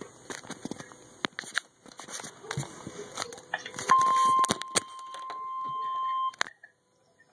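NOAA Weather Radio receiver crackling with static and clicks, then sounding the 1050 Hz warning alarm tone, a steady high beep, from about four seconds in for a couple of seconds before it cuts off abruptly with a click. The tone signals an incoming emergency alert, here a tornado warning.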